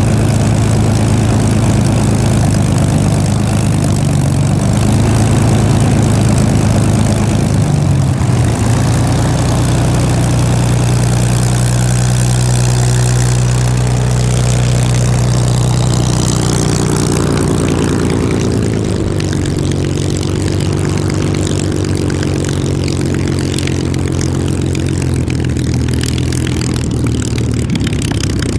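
Rolls-Royce Merlin V12 engine of a Supermarine Spitfire running at low revs with its propeller turning. The engine note shifts about a third of the way in and again just past halfway as the revs change.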